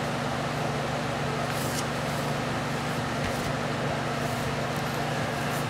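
ORCA Blitreme 3 brushless RC car motor spinning at a constant speed on a gear-driven test dyno during an RPM run. It makes a steady whir with an even hiss, and its pitch does not change.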